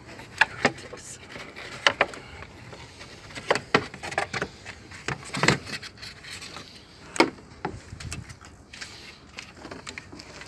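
Irregular clicks, knocks and rattles of plastic parts being handled: a car's fan shroud and coolant hoses being worked loose and pulled out by gloved hands.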